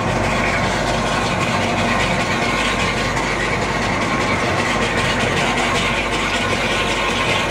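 Homogenizing and emulsification mixer running with its stirrer and homogenizer on: a steady, loud machine hum with a high whir over it.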